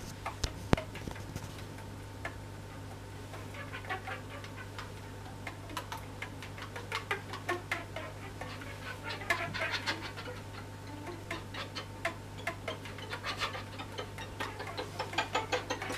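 Irregular clicks and crackles over a steady low hum, growing denser toward the end.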